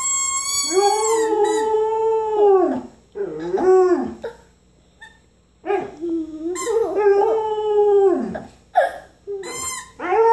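A Samoyed howling, its so-called singing. A long howl of nearly three seconds comes first, then a few shorter ones and a pause of over a second, then another long howl and short ones, with a new howl beginning near the end.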